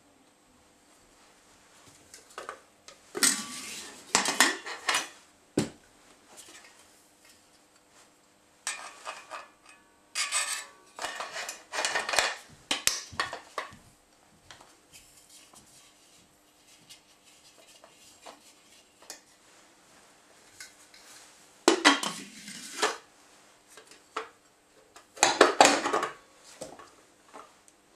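Metal parts of a disassembled Stirling engine clinking, scraping and knocking as an aluminium cover plate and a stainless-steel cylinder are handled and set down on metal plates. The clatter comes in several bursts with quiet between them, the loudest knocks near the end.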